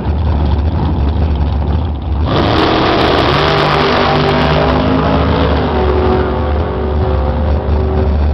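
Dragster engine running at the starting line, then launching about two seconds in: a sudden loud burst of engine noise that rises in pitch as the car accelerates and fades as it pulls away down the track.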